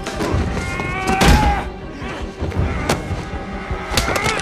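Added fight sound effects: several hard punch and body impacts, thuds and whacks, landing a second or so apart over dramatic background music.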